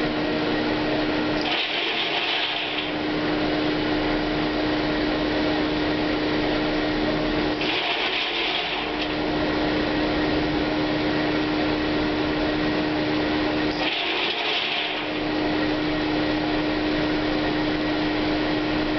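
Corn grain dryer running: a steady mechanical drone with a constant hum, broken about every six seconds by a hiss lasting a second or so.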